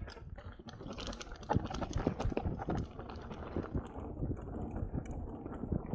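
Mountain bike rolling fast down a dirt forest singletrack: tyres running over the trail and a dense, irregular clatter of clicks and knocks from the bike over bumps, over a steady low rumble.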